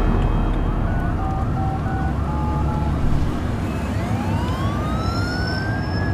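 Emergency siren sounding over the low road rumble of a car's cabin: quick repeating rise-and-fall sweeps at first, then from about four seconds in one long slow rising wail that starts to fall at the end.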